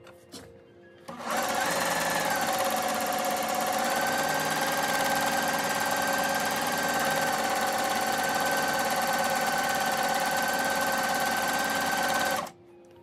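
Electric sewing machine sewing coiled cotton rope, running at a steady speed with a constant whine for about eleven seconds. It starts after a few light clicks about a second in and stops suddenly near the end.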